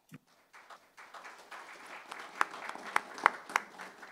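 Applause from a group of people clapping, building up after the first second with a few sharp individual claps standing out, then thinning out near the end.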